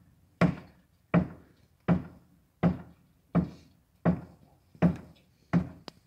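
Hammer blows on a stucco wall, about eight evenly paced strikes, roughly one every three-quarters of a second, each a sharp knock that dies away quickly. The wall is being broken open to reach a beehive inside it.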